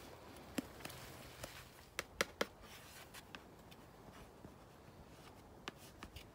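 A few sharp, light taps of a wooden stirring stick knocking against a plastic mixing bowl of bread dough, with a quick run of three about two seconds in and single taps before and near the end.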